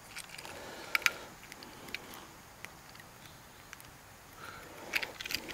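Faint handling sounds as monofilament fishing line is pulled against a handheld scale: a few sharp little clicks and some soft rustling over a low hiss.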